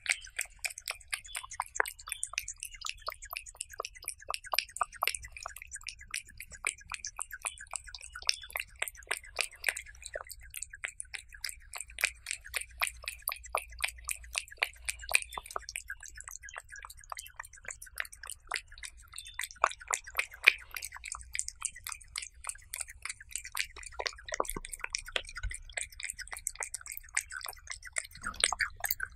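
A cat eating raw beef with egg yolk, picked up close: a rapid, continuous run of wet chewing and licking clicks, several a second.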